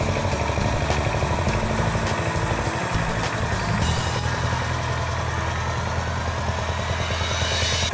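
Power tiller's diesel engine running steadily while the walking tractor tills the soil.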